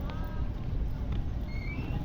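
Busy outdoor street-market ambience: a steady low rumble with brief faint voices in the crowd.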